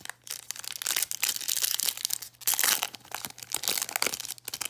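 Plastic trading card pack wrapper being torn open and crinkled, a dense run of sharp crackles.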